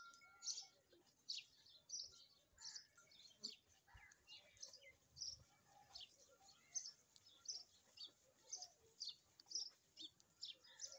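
Faint short, high chirps from small birds, repeated steadily about once or twice a second.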